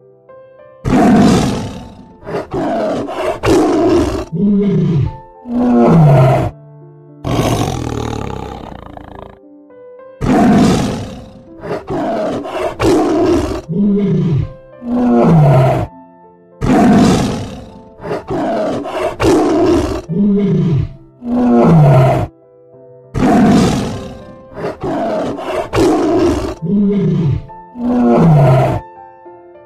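Tiger roaring: bursts of loud roars and grunts, the last ones in each group falling in pitch. The same sequence repeats about four times over soft background music.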